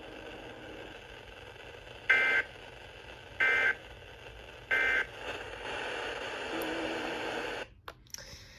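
NOAA Weather Radio end-of-message code: three short, identical digital data bursts about a second apart, heard over faint radio hiss, marking the end of the broadcast watch message. A faint low hum follows, then the audio drops out.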